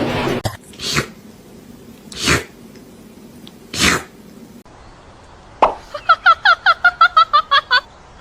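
Three short, breathy bursts, then a rapid train of about a dozen short pitched chirps, some seven a second, like a house cat chattering.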